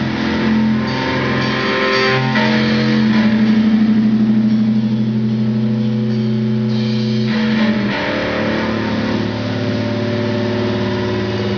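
Live punk band's distorted electric guitars and bass holding long sustained chords and feedback, changing notes about two seconds in and again near eight seconds, as the song rings out at its end.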